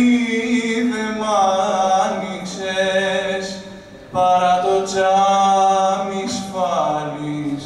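A man singing a slow Greek song a cappella: long held notes with sliding, ornamented pitch, one phrase dying away about four seconds in and the next starting loud at once, moving lower near the end.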